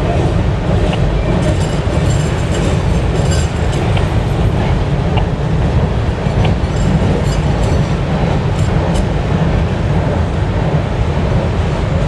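Freight cars rolling over a steel girder bridge: a loud, steady rumble of wheels on rail, with scattered faint high squeaks and clicks, mostly in the first half.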